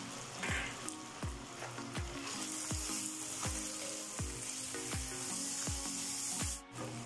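Mutton pieces and green chillies sizzling in hot oil in a karahi on a high flame, stirred with a wooden spatula. The sizzle grows louder about two seconds in. A steady beat of background music runs underneath, and the sound cuts out briefly near the end.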